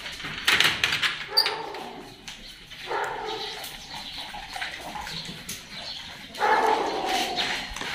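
Dog barking in a few separate bursts.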